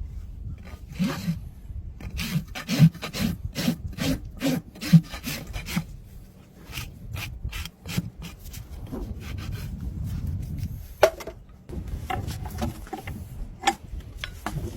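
A farrier's tool scraping and rasping over a horse's hoof horn in runs of quick, rhythmic strokes, about three a second, with short pauses between the runs.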